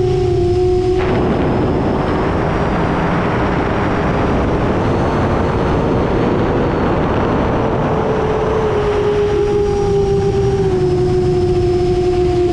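10-inch FPV quadcopter's motors and propellers heard from its onboard camera: a steady whine, swamped about a second in by a loud rush of wind noise that lasts until about nine seconds, when the whine comes back through, pitched a little higher and slowly sinking.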